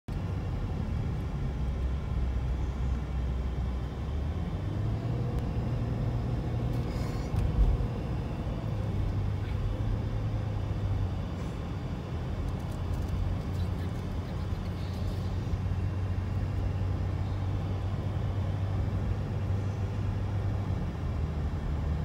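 Steady low rumble of a moving motor vehicle. Its drone steps in pitch a few times, and there is a brief knock about seven and a half seconds in.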